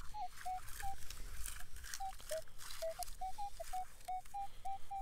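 Minelab Equinox 800 metal detector sounding a target: a run of short beeps, two to four a second, the pitch jumping up and down a little. This is the jumpy, high-pitched signal the detectorist digs. Dry stubble crackles under the coil.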